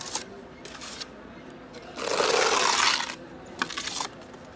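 A metal plastering knife scraping wet texture compound: a few short scrapes, then one longer, louder scrape lasting about a second in the middle, and a couple more short strokes near the end.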